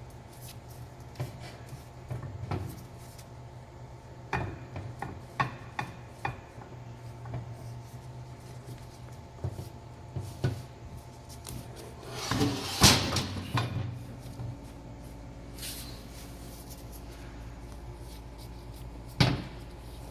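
Scattered knocks, clinks and rubbing of a CTS-V brake caliper and its mounting hardware being handled and seated on the bracket, with a louder clatter about 13 s in and another knock near the end, over a steady low hum.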